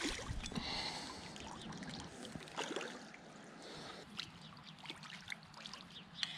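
Water splashing and sloshing as a hooked barbel thrashes at the surface close to the rod tip, loudest in the first second. Fainter scattered splashes and drips follow as the landing net is lifted from the water.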